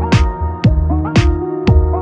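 Background music with a steady beat, about two drum hits a second over a sustained bass line.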